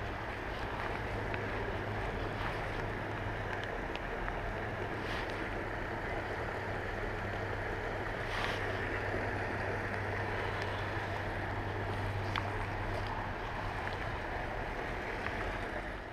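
Steady outdoor wash of wind and water noise, with a low steady hum that stops about 13 seconds in and a few faint clicks.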